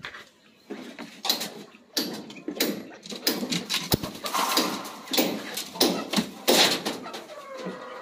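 Chickens being let out of a wooden coop: an irregular run of scuffles, scrapes and knocks on the wood, the sharpest knock about four seconds in.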